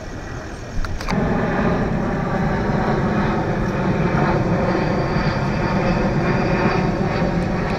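A loud, steady engine drone with an unchanging pitch, cutting in abruptly about a second in after a couple of sharp clicks.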